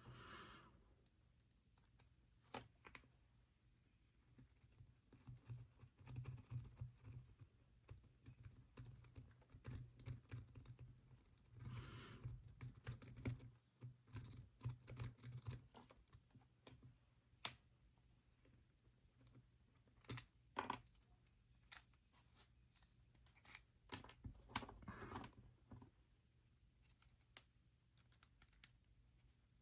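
Faint clicks, taps and scratching from a hairpin used as an improvised pick inside a dimple lock's keyway, with busier stretches of scraping and clicking a quarter of the way in and again near the end.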